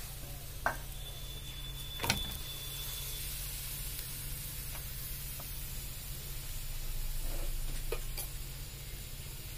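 Spinach paratha sizzling in oil on an iron tawa: a steady soft hiss over a low hum, with a few light taps and clicks, the sharpest about two seconds in.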